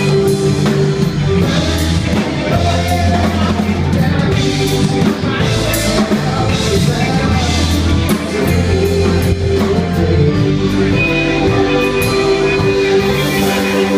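A rock band playing a song: drum kit keeping a steady beat under guitars and a singing voice.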